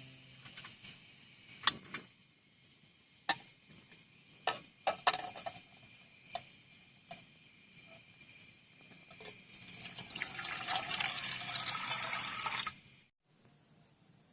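Several sharp knocks and clicks in the first half, then about three seconds of water pouring or splashing over a faint steady hiss. The water stops suddenly near the end.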